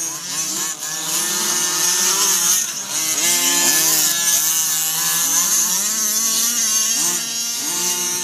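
Small two-stroke gas engine of a 1/5-scale Losi RC truck, revving up and backing off again and again as it is driven around a dirt track, with a buzzing, chainsaw-like tone.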